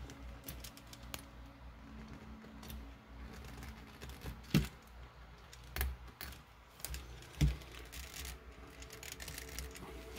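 Quiet handling noises as fingers work a thin hydraulic hose onto a metal fitting on a metal model excavator arm: scattered small clicks and rubbing, with three sharper taps in the middle.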